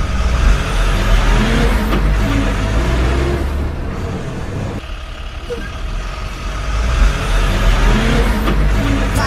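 Heavy truck engine running as the truck drives along. The rumble drops away about halfway through and builds again.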